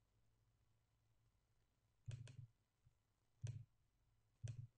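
Near silence broken by a few faint clicks: a quick double click about two seconds in, then two single clicks about a second apart.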